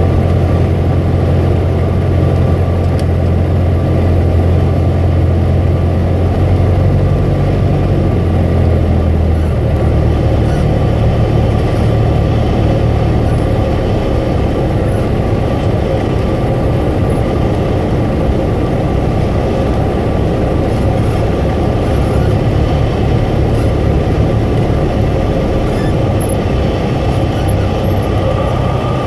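A light single-engine aircraft's piston engine and propeller droning steadily, heard from inside the cockpit along with airflow noise during a short-field landing. The low engine note changes and eases a little about eight seconds in.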